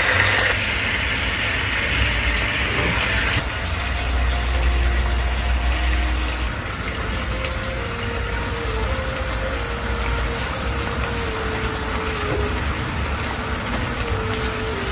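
Sauce sizzling and bubbling in a hot frying pan with eggs and shallots, a steady hiss that is louder and brighter for the first few seconds, just after the sauce is poured in.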